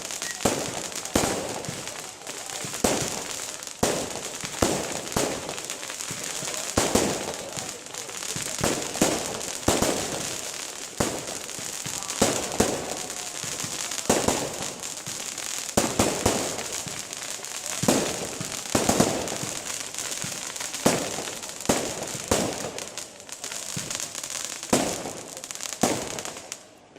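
Aerial fireworks display: shells bursting in quick succession, several sharp bangs a second with crackling in between, until the sound drops away suddenly near the end.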